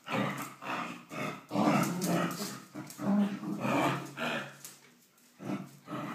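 Dogs play-growling at each other, a run of short rough growls one after another that pause about five seconds in before one last short growl.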